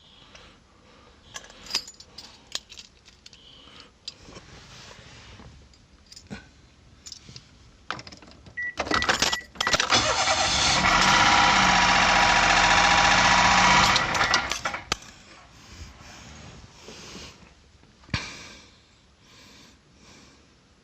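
Keys jangling and clicking, then about nine seconds in the engine of a Daihatsu Mira is started and runs loudly for about five seconds before it stops. The noise is that of an engine wrecked by neglected oil changes.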